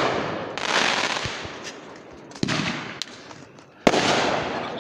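Fireworks exploding: two sharp bangs, about two and a half and four seconds in, each followed by a crackling hiss that fades over a second or two, with the crackle of a burst just before still dying away at the start.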